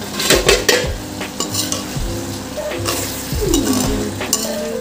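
A perforated metal spoon stirring and scraping through fish in tomato gravy in a hammered metal kadai, with the gravy sizzling underneath. A quick cluster of scrapes comes in the first second, then slower, scattered strokes.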